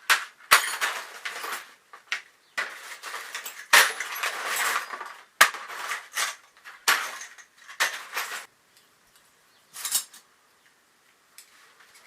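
Metal objects rattling and clinking as they are handled, in a series of short bursts with a few sharp clicks. The sound goes quieter for the last couple of seconds.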